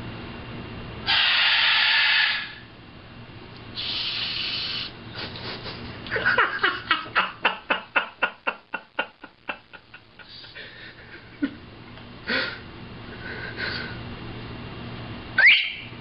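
A parrot making a string of noises: two harsh hissing sounds, then a fast run of clicking pulses, about four a second, that fades away over about four seconds, then short chirps and a quick rising whistle near the end.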